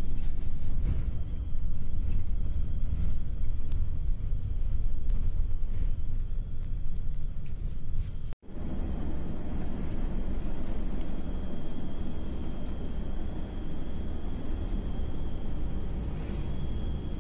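Steady low rumble of a moving bus heard from inside the passenger cabin: engine and road noise. A brief break about eight seconds in, then the rumble carries on.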